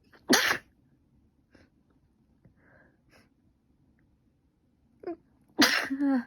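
A person with a cold and allergic rhinitis sneezing: a short, loud sneeze just after the start, a few faint breaths, then a quick intake of breath and a second loud sneeze with a voiced tail near the end.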